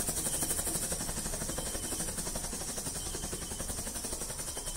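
Ground fountain firework burning, hissing steadily as it sprays sparks and slowly fading a little.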